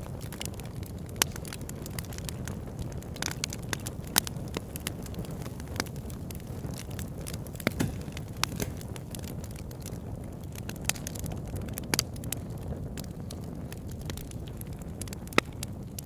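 Crackling: a steady low rush with irregular sharp pops and clicks scattered through it.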